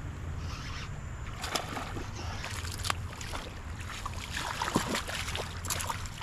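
Hooked smallmouth bass thrashing at the surface beside a kayak: scattered sharp splashes, coming thick and fast in the last couple of seconds, over a steady low rumble.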